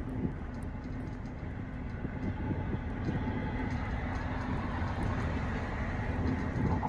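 Steady engine and road noise heard from inside a moving bus, with a low hum running under it.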